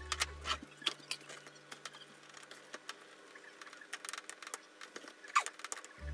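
Light clicks and taps of a plastic rice paddle scooping cooked rice into a plastic bento box set on a stainless steel tray, with one sharper clack about five seconds in.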